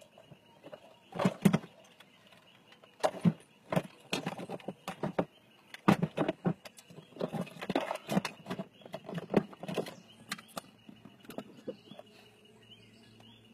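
Handling noise: irregular rustles and knocks as the cloth-covered camera is jostled about, in bursts every second or so that thin out near the end.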